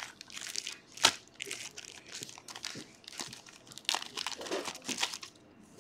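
Foil wrapper of a Panini trading-card pack crinkling and rustling in gloved hands as the pack is opened, in short repeated bursts with one sharp crackle about a second in.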